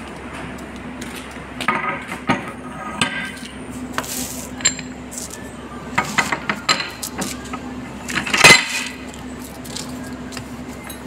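Steel-on-metal clanks and clinks as a steel shaft is worked through a paper reel's core and a cast-metal cone chuck is slid along it and seated against the core. The knocks are irregular, with the loudest about eight and a half seconds in, over a steady low hum.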